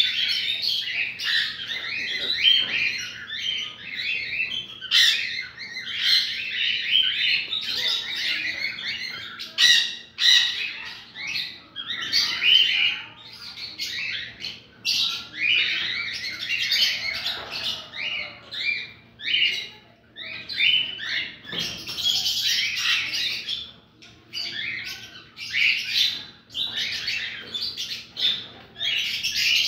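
Cockatiels in an aviary chirping and squawking, many short calls overlapping without a break.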